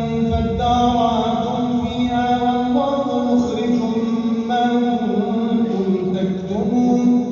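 A solo man's voice reciting the Quran in melodic tajwid chant, drawing out long held notes that glide up and down between phrases.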